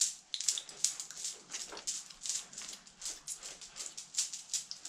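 Small tablets broken between the fingers and a foil blister pack crackling as pills are pressed out: a quiet run of short, irregular crackles.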